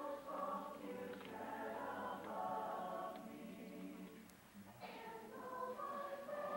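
Mixed high-school choir singing sustained chords, thinning to a brief pause about four seconds in before the voices come back in.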